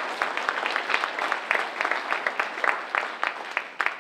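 Audience applauding, a dense patter of many hands clapping at once that thins out near the end.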